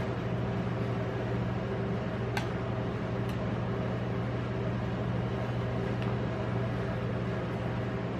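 Steady electric hum of a rolled-ice-cream cold plate's refrigeration unit, with a few light clicks as a metal spatula works the frozen ice cream on the steel plate.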